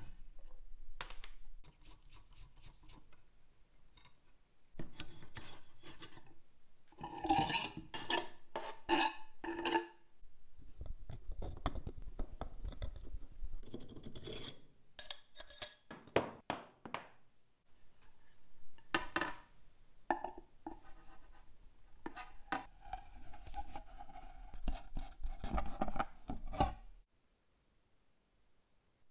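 Hand tools scraping and rubbing on old machine parts in irregular strokes, with light clicks and clinks and a longer squeaky stroke in the later part; the work stops shortly before the end.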